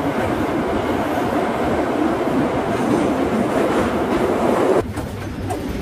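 Moscow Metro train running through the tunnel, heard from inside the carriage: a loud, steady rumble and rattle of the car and its wheels on the rails. The noise drops suddenly near the end.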